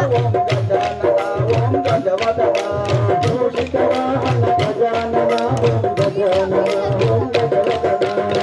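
Indian folk music for kolattam, with a drum beating about twice a second and a melody over it. Short wooden kolattam sticks clack sharply and often, struck together by the dancers in time with the music.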